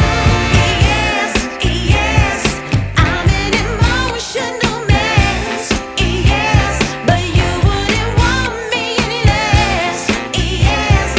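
Background music with a sung vocal line over a steady drum beat.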